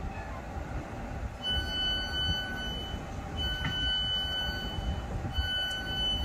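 Door warning alarm of a South Western Railway Class 455 electric train sounding in three repeated bouts of beeping, each about a second and a half long, with a high and a lower tone together. It starts about a second and a half in, signalling that the doors are about to close, over a steady low rumble from the standing train.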